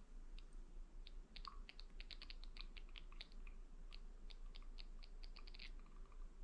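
Faint, irregular light clicking and ticking of small hard parts being handled, in quick runs of several clicks a second, over a steady low hum.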